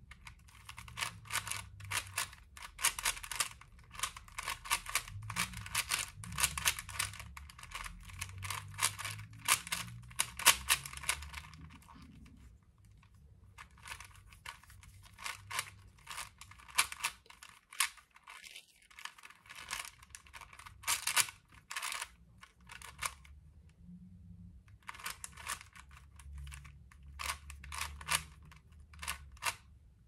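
Rubik's cube being turned by hand: fast runs of plastic clicking and clacking as the layers turn, with short pauses about twelve seconds in and again a little past twenty.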